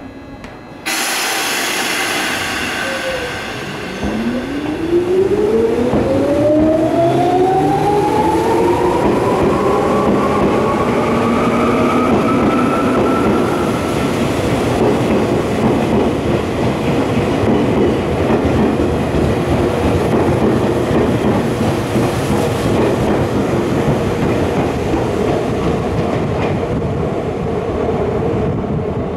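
Tokyu 8500 series electric train pulling out of a station. About a second in there is a sudden hiss of air. From about four seconds the traction motors' whine rises steadily in pitch for some ten seconds as the train accelerates, over a loud rumble of wheels on rail that continues afterwards.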